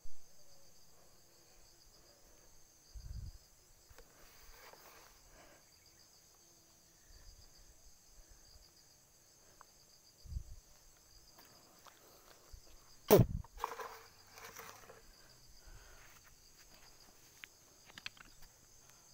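Insects chirring steadily, with footsteps and rustling through undergrowth and a few dull thumps, the loudest about 13 seconds in.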